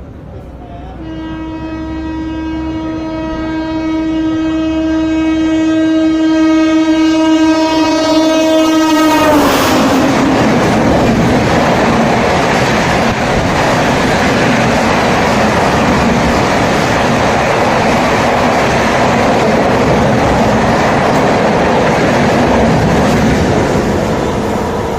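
Indian Railways locomotive horn sounding one long steady blast, growing louder as the train approaches at speed. The pitch drops as the locomotive passes about nine seconds in. After that comes loud, steady noise from the train's coaches rushing past.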